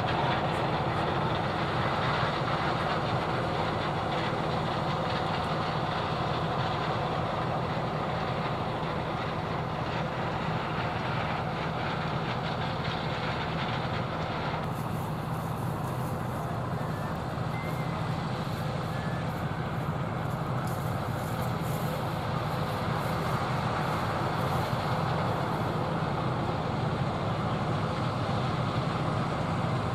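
John Deere 9570 STS combine harvesting corn: engine and threshing machinery running steadily with a low hum. A faint high crackle comes and goes through the middle stretch.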